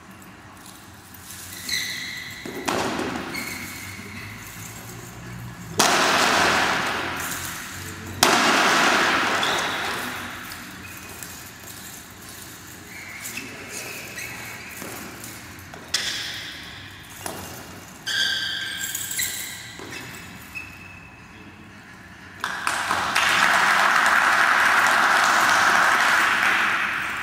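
The steel links of a kung fu chain weapon clinking and ringing, with several sharp strikes that echo in a large hall. About 22 seconds in, steady applause starts and lasts some four seconds.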